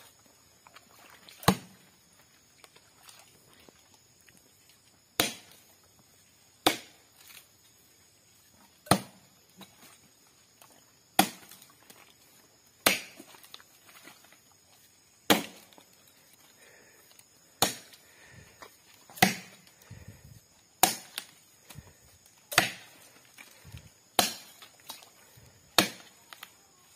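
Machete chopping into the base of a sago palm trunk to fell it. Sharp chops come every one and a half to two and a half seconds, about a dozen in all.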